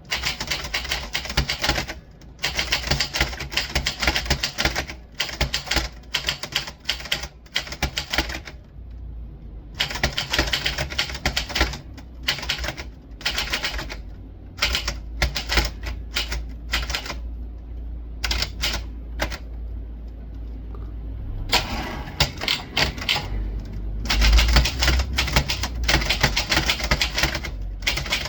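Typewriter keys struck in fast, dense runs of clacking, broken every few seconds by brief pauses.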